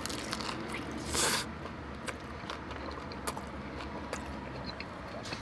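A bite into a consomé-dipped birria taco with a crisp fried tortilla about a second in, then chewing with small wet mouth clicks.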